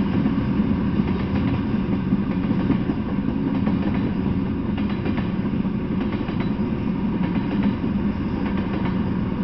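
Freight train of tank cars rolling past: a steady low rumble of steel wheels on rail, with irregular clicks as the wheels cross rail joints.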